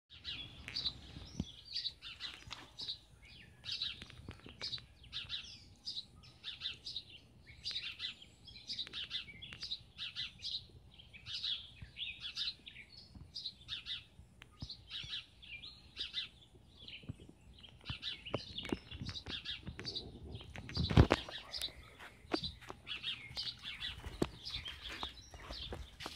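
Young European starling's raspy chirps, repeated two or three times a second. A single loud thump late on.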